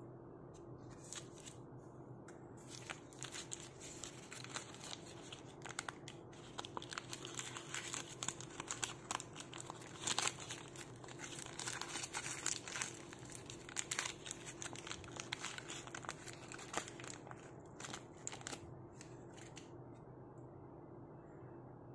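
Baking-paper wrapper of a grilled fish cake crinkling and tearing as it is peeled open by hand: many small crackles over a steady low hum, stopping shortly before the end.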